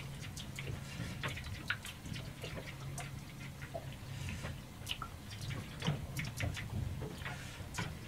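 Light clicks and scrapes of a utensil working an omelette in a frying pan on a gas stove, with a faint frying sizzle, over a steady low hum.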